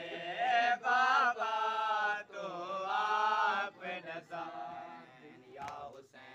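Male voice chanting a noha, a Shia lament, in long drawn-out sliding lines that grow quieter after about four seconds. Two sharp hits come near the end.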